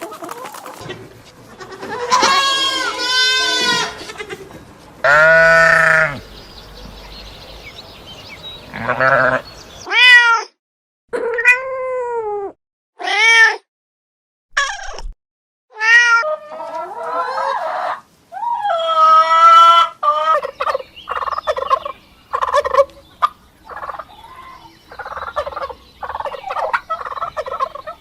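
A string of separate animal calls, one after another: loud pitched cries, many rising and then falling in pitch, each lasting about half a second to a second and a half. About twenty seconds in they give way to a quicker run of short, choppy calls.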